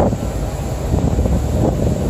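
Wind buffeting the microphone: a loud, uneven low rumble with no clear tone.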